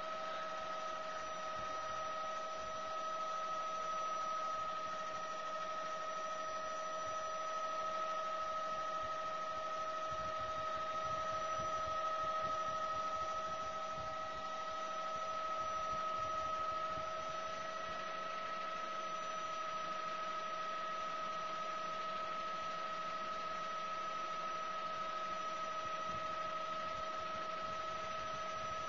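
Helicopter in flight heard from inside the cabin: a steady hum with a whine over an even hiss.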